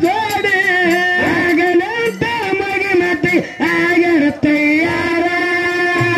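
A man singing a Dollina Pada, a Kannada folk devotional song, through a microphone and PA, holding long notes that waver and bend between short phrases.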